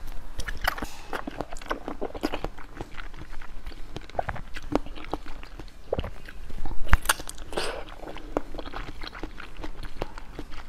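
Close-miked eating sounds of biting into and chewing a clear jelly cube with round pieces set inside: a steady run of short wet clicks and smacks, with a louder bite about seven seconds in.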